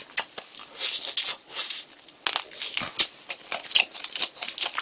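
Close-miked chewing and lip-smacking while eating spicy chicken wings: an irregular run of short clicks, several a second.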